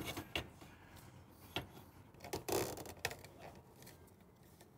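Light clicks and knocks of exhaust mounting hardware being handled and fitted to a motorcycle silencer, with a short scrape about two and a half seconds in; the sounds stop after about three seconds.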